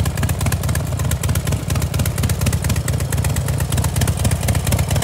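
Harley-Davidson Dyna Wide Glide's air-cooled V-twin engine idling steadily, a fast run of even pulses.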